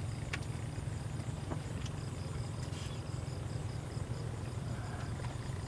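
An insect, cricket-like, chirping in a steady train of short high pulses over a constant low rumble, with a few faint clicks.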